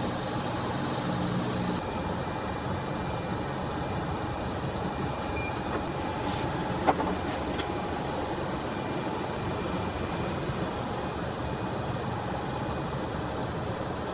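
Steady fan or blower noise from the electronics repair bench, with one sharp click about seven seconds in.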